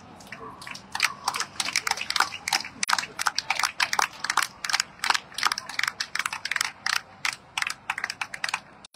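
Scattered applause from a small ringside crowd: irregular individual hand claps that start about a second in and keep going.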